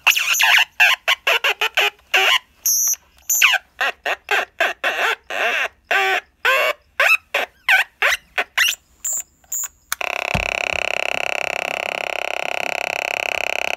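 Atari Punk Console synth built into a Realistic TRC-84 walkie-talkie, playing square-wave tones through the handset's small speaker. The tones stutter on and off rapidly with the pitch bending up and down, and about ten seconds in settle into one steady, unbroken buzzing drone.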